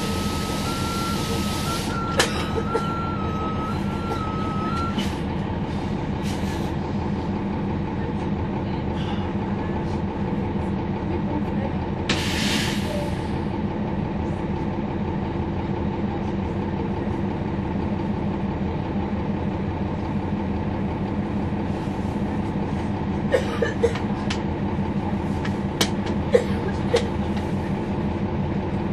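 Cummins ISL9 diesel engine of a 2011 NABI 40-foot transit bus running steadily, heard from on board. A warbling two-pitch tone sounds for the first five seconds, there is a short hiss of released air about twelve seconds in, and a few sharp clicks and knocks come near the end.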